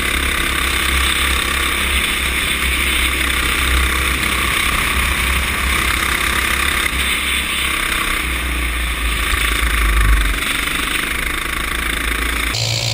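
Go-kart engine running at speed, recorded from a camera mounted on the kart, with heavy wind buffeting on the microphone. The sound changes abruptly near the end.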